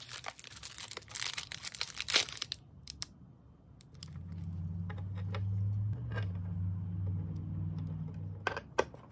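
Thin plastic packaging crinkling and tearing as a metal drawer pull is unwrapped. About four seconds in, a low steady hum starts and runs for several seconds, followed by a few small sharp clicks near the end.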